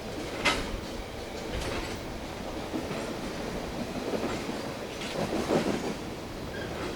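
Freight cars of CN train 594 rolling past, steel wheels clacking over the rail joints with a steady rumble. A sharp click comes about half a second in and a louder run of knocks near the end.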